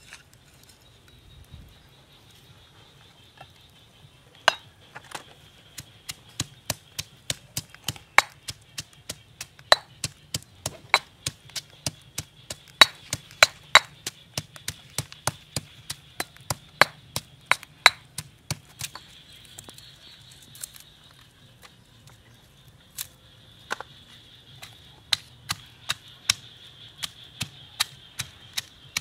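Pestle pounding chopped vegetables in a stone mortar: sharp knocks about two a second, stopping for a few seconds past the middle and then starting again.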